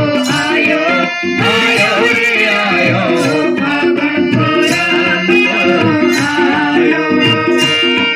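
Live Holi (Dhuleti) festival song: voices singing into microphones over a harmonium's held chords, with tabla and dholak drumming, amplified through a PA. There is a brief break about a second in, then the full ensemble continues.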